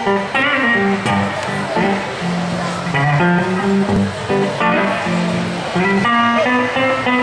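Hollow-body archtop electric guitar playing a blues intro, with picked melodic lines of changing notes and some strummed chords.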